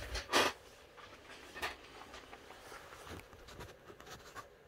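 Faint handling noise, rustling with a few light clicks, as the camera is picked up and moved, after one short louder sound at the very start.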